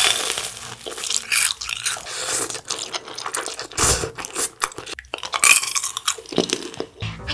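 Close-miked eating sounds: crunchy bites into a fried cheese ball, then slurping and chewing spicy stir-fried noodles. Dense, crackly crunching and smacking throughout.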